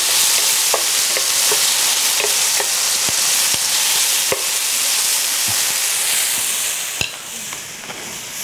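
Chopped onion and tomato sizzling in olive oil in a hot pan, stirred with a wooden spoon that knocks and scrapes against the pan now and then. The sizzle drops off after a sharp knock about seven seconds in.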